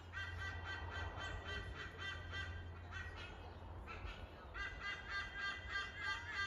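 Animal calls: a fast run of repeated pitched notes, about five a second, breaking off about three seconds in and starting again a second or so later. A steady low hum sits underneath.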